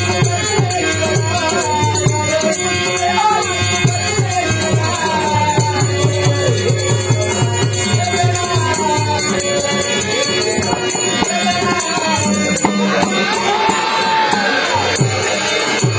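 Dashavatar folk-theatre music: a hand drum beating a quick, even rhythm and small cymbals jingling throughout, under a gliding sung melody line.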